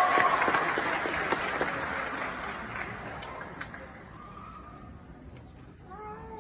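Audience applause in a large hall, loud at first and dying away over about three seconds. A short faint voice is heard near the end.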